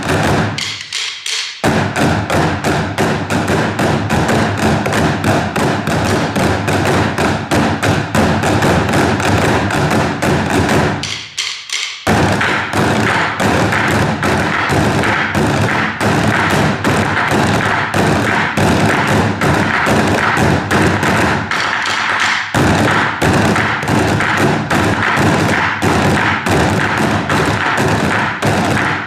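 A percussion ensemble playing together: a dense, fast run of drum hits and taps. About a second in and again around eleven seconds, the deep hits drop out briefly, leaving only lighter taps, then the full group comes back in.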